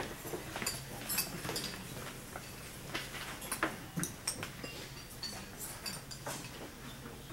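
Scattered light clinks and taps of cutlery, plates and glasses at dinner tables, over a low steady hum.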